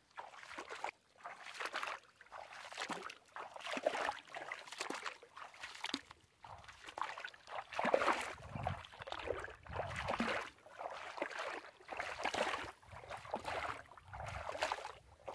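Footsteps walking at a steady pace, a little more than one step a second, over the muddy bed of a drying reservoir.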